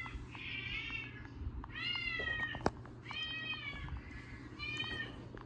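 Little puppies whining: about four high-pitched, arching whines, each under a second long, with a single sharp click near the middle.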